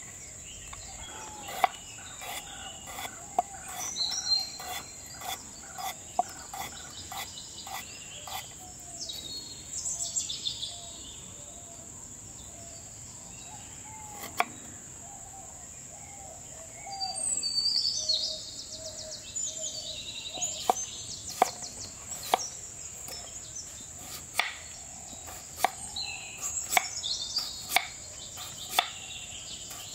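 Kitchen knife chopping firm vegetables (carrot, potato) on a wooden cutting board: sharp taps in irregular runs, with a long pause in the middle. Behind it a steady high insect drone and birds chirping now and then.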